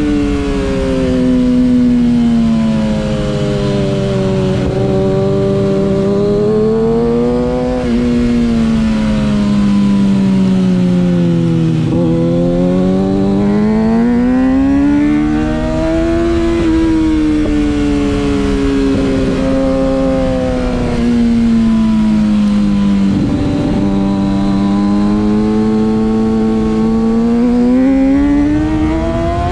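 Stock Kawasaki ZX-6R inline-four sport bike engine at track speed. Its pitch rises under acceleration and falls off again several times, with short breaks where the rider shifts gear, and it climbs steadily near the end.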